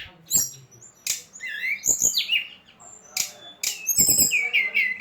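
A songbird calling in quick chirps and short whistles, with a rapid run of falling notes near the end, broken by a few sharp clicks. It is a 'pancingan' bird-call recording, the kind played to provoke caged birds into singing.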